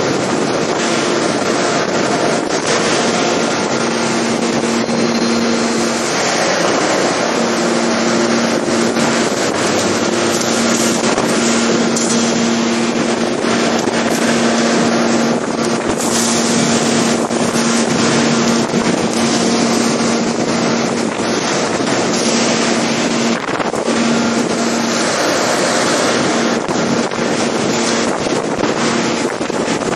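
Y13-5000 forging press running: steady, loud machine noise with a low hum that drops out and returns several times, without distinct hammer blows.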